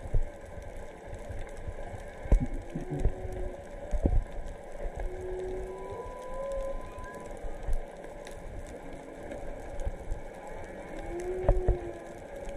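Humpback whale song heard underwater: several long moaning tones, some rising in pitch, from more than one whale, with a few low knocks close to the microphone.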